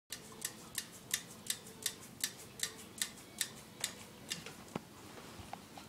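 A dog with its head down at a tile floor makes a rhythmic clicking, about three sharp clicks a second, that breaks up into a few scattered clicks near the end.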